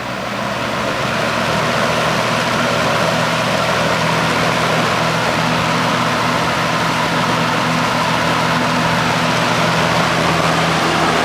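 1981 Kmart K223 box fan by Lakewood, McMillan motor turning a plastic blade, running on high speed: a steady rush of air over a low motor hum. It comes up to speed over the first second or two, then holds steady.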